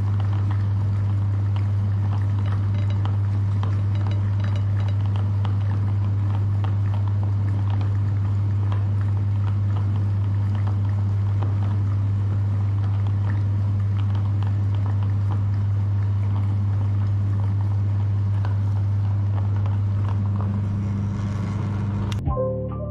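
Electric meat grinder running steadily with a strong low hum, small clicks and crackles of material passing through; it stops shortly before the end.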